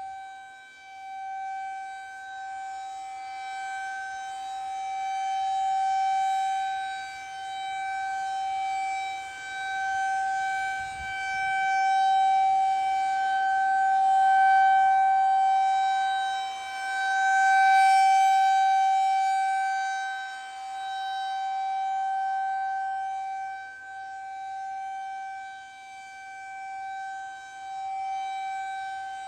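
Federal Signal 2001-SRN outdoor warning siren sounding a steady alert tone at full speed, holding one pitch. The sound swells and fades every few seconds as the rotating horn sweeps toward and away.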